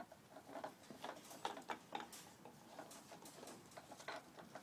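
Havanese puppies' paws and claws pattering on wooden deck boards: faint, irregular clicks and taps, several a second.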